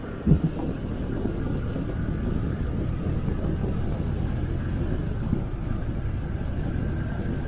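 Yamaha FZ motorcycle on the move, its single-cylinder engine running steadily under road and wind noise. A short thump sounds just after the start.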